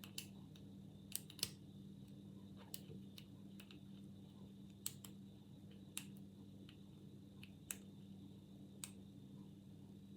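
Faint, irregular clicks of a homemade hacksaw-blade half-diamond pick working the pins of an old Yale padlock under tension, about eight sharp ticks spread unevenly, over a steady low hum.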